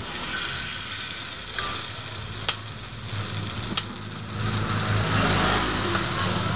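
Batter sizzling in the cells of a hot cast-iron takoyaki pan, a steady frying hiss, with a couple of sharp clicks. A low steady hum runs underneath and grows louder about halfway through.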